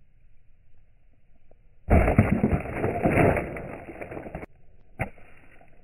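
Gingerbread house crunching and breaking apart under a stomping foot on asphalt: a loud crunching starts suddenly about two seconds in and cuts off abruptly a couple of seconds later, followed by a single sharp click.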